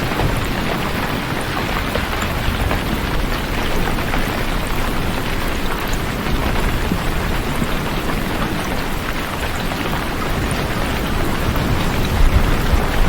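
Steady heavy rain, a dense hiss with scattered drop ticks over a continuous low rumble.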